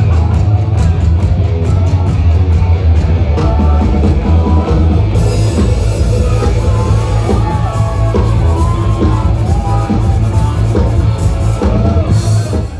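Live rock band playing loud: electric guitar, drum kit and keyboard over heavy bass, with a voice singing through the second half. It cuts off suddenly at the end.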